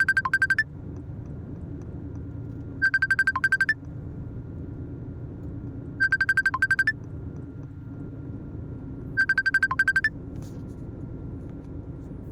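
A phone ringing with a rapid electronic trill, four rings about three seconds apart, over the steady low rumble of a truck engine.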